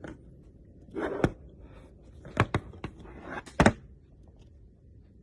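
A toy figure and its packaging being handled: several sharp clicks and knocks, the loudest about two and a half and three and a half seconds in, with brief rustling between them.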